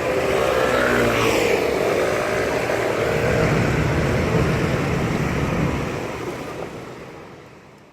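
Busy city street: traffic noise with passing vehicles, fading out over the last couple of seconds.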